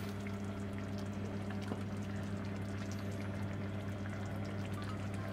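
Tomato sauce simmering in a cast-iron skillet, with faint, scattered bubbling and popping over a steady low hum.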